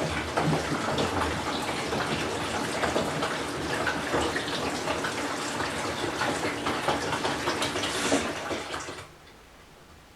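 Water running into the drum of a Whirlpool Cabrio top-load washer, stopping abruptly about nine seconds in and leaving a faint background.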